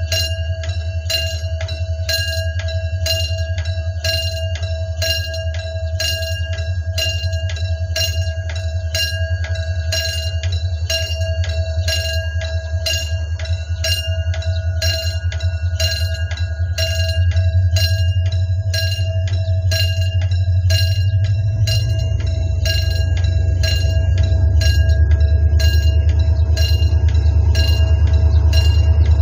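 Level crossing warning bell ringing in regular, evenly spaced strokes, over the low running of a diesel locomotive hauling a passenger train. The locomotive's engine grows louder about two-thirds of the way through as the train sets off toward the crossing.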